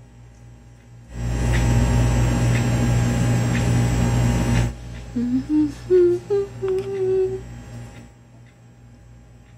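A loud steady drone starts about a second in and cuts off abruptly. Then a person hums a short tune of a few notes stepping upward in pitch.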